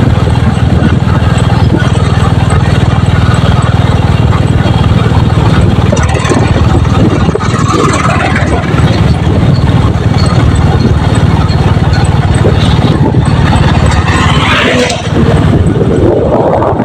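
Royal Enfield motorcycle engine running steadily while riding, with wind noise over the microphone.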